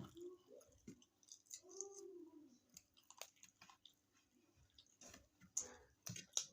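Close-miked chewing and wet mouth noises of a person eating stuffed cabbage rolls, with scattered smacking clicks that cluster near the end.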